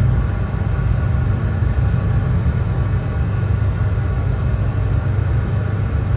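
Steady brown noise: an even, unbroken hiss weighted heavily toward the low end, so it sounds deep, like a low rumble.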